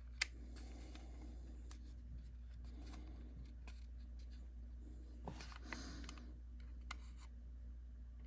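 Faint handling of small plastic model-train parts: a sharp click just after the start, then soft rubbing and a few light clicks, over a steady low hum.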